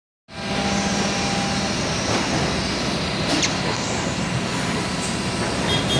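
Steady machinery noise of an automated robot work cell: industrial robot arms and pneumatic fixtures running with a constant hum. A brief hiss of air sounds about three and a half seconds in.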